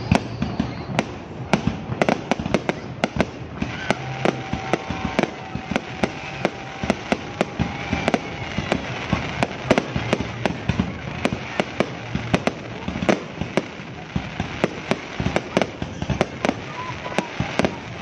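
Fireworks display: a dense, irregular barrage of sharp bangs from bursting aerial shells, going on without a break.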